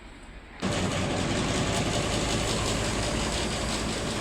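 Polycab ceiling fan running at full speed, a steady noisy whir that starts abruptly about half a second in. The noise comes from inside the motor, which the technician puts down to a fault in the motor's shaft.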